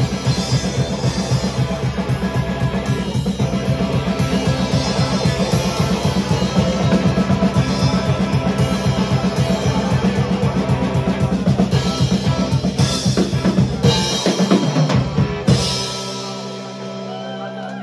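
Live electric guitar and drum kit playing an instrumental passage with a steady, busy beat. About fifteen seconds in the drums stop on a final hit and a guitar chord rings on and fades as the song ends.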